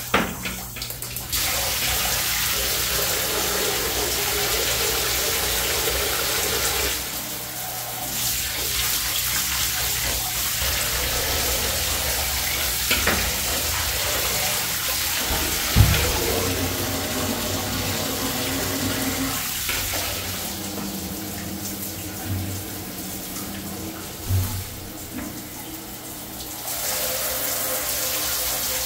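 Water running steadily in a bathtub full of dirty backed-up drain water. The rush drops and swells a few times, with a couple of short knocks.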